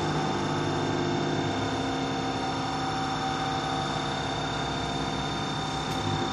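Hydraulic press brake running: a steady machine hum made of several steady tones, the lowest of them easing off about a second and a half in.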